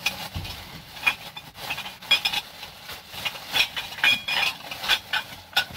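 Gloved hands rummaging through plastic bags of discarded household items: plastic rustling and crinkling, with many quick clicks and light clinks of the things inside.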